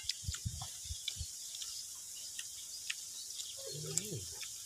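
Eating sounds at a table: a few soft knocks and clicks of spoons and snail shells against bowls in the first second or so, then a faint steady hiss, with a short hum from a voice about four seconds in.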